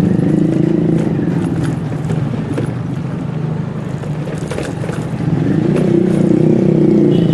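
Motorbike engine running amid street traffic, easing off in the middle and picking up again about five seconds in, with scattered clicks and rattles.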